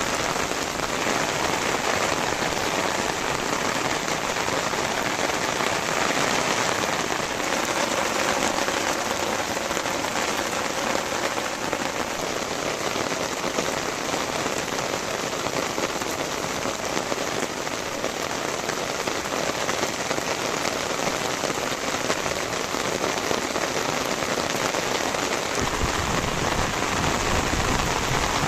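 Heavy rain falling steadily, a dense even hiss of drops on the ground. A low rumble joins near the end.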